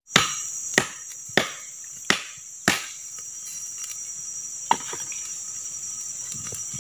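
Five sharp chopping strikes of a blade into wood, about one every 0.6 seconds, then one more a couple of seconds later, over a steady high drone of forest insects.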